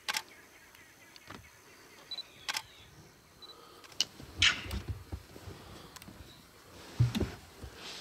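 Camera shutter clicks, about half a dozen, spaced irregularly, with a couple of low knocks in the middle and near the end.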